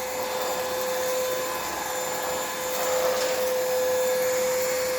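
Kmart Anko 22.2-volt cordless stick vacuum cleaner running steadily: a constant motor whine over rushing air.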